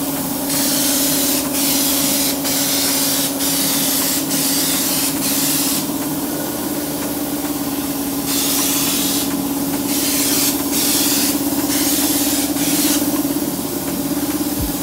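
Spray gun spraying sealer onto a wooden cabinet in short hissing bursts of about a second each, with a longer pause of about two seconds midway. A steady motor hum runs underneath.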